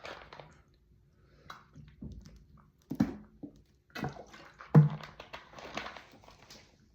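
Short, low throat and mouth sounds from a person, with two sharper ones about three and five seconds in and softer breathy, wet mouth noises between.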